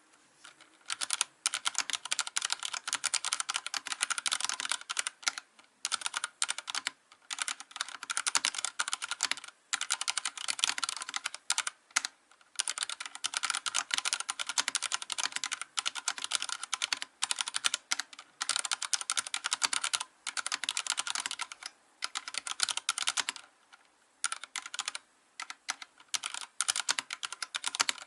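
Fast typing on a Vortex Race3 mechanical keyboard with Cherry MX Silver linear switches: dense runs of keystroke clacks broken by short pauses every few seconds.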